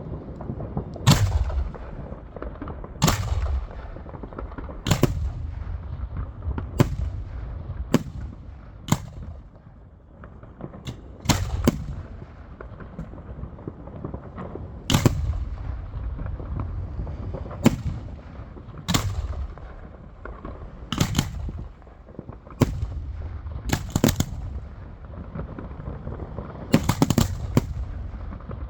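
Fireworks going off: a run of sharp bangs a second or two apart, some in quick doubles and clusters, each followed by a low booming rumble.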